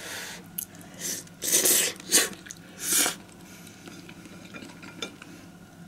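A person slurping instant-ramen noodles and broth from a hot pot in five short, airy slurps during the first three seconds, with a light click or two of bowl and utensils.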